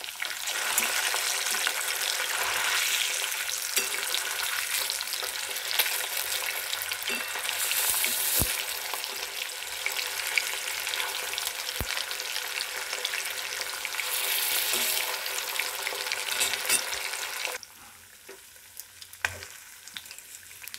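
Rohu fish pieces sizzling as they shallow-fry in hot oil in a wok, with a metal spatula scraping and tapping against the pan as the pieces are turned over. The sizzle flares up twice, then drops suddenly to a faint crackle near the end.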